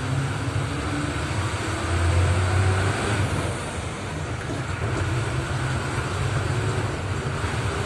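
Bus engine running with road noise inside a moving bus, a steady low rumble whose engine note rises slowly twice as the bus picks up speed.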